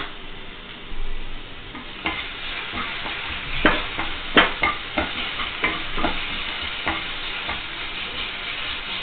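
Onion-tomato masala with spices sizzling in hot oil in a kadai while a wooden spatula stirs and scrapes it, with a run of sharp clicks and taps of the spatula on the pan in the middle of the stretch. The masala is being fried down.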